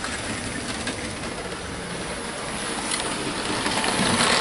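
Hornby model train running along its track: a steady rolling rumble that grows louder toward the end.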